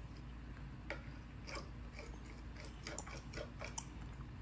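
Faint, irregular small clicks and ticks from a baby in a high chair, about ten of them, coming closer together in the second half.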